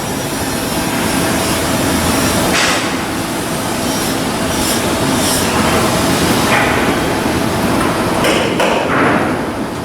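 Shipbuilding work noise on a steel hull: a loud steady machine noise with about six sharp knocks or clanks spread through it.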